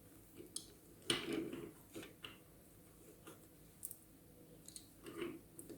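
Faint, scattered clicks and rustles of small toy figures being handled and fitted into a plastic toy pram, the loudest about a second in.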